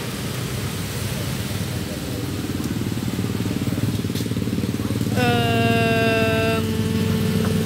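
A steady low engine rumble, like an idling motor, runs throughout. About five seconds in, a held pitched tone starts, falling slightly at first.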